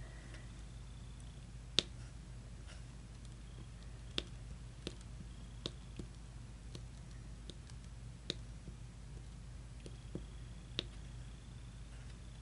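Sharp, irregular clicks, roughly one a second, of a diamond-painting applicator pen tipped with blue tack picking up resin drills from the tray and pressing them onto the canvas.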